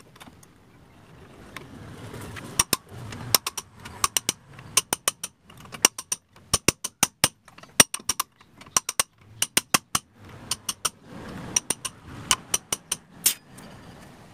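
Hand ratchet wrench clicking in short quick runs of sharp clicks, with brief pauses between strokes. The clicking starts about two and a half seconds in.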